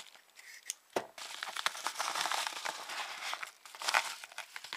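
A mail package being opened by hand: irregular crinkling and rustling of its paper and plastic wrapping, with one sharp knock about a second in.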